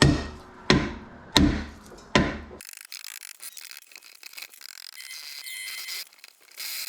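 Hammer blows on a brake rotor that is hung up on its hub: four sharp strikes about 0.7 seconds apart. About two and a half seconds in, the sound cuts off abruptly, leaving only a thin high hiss.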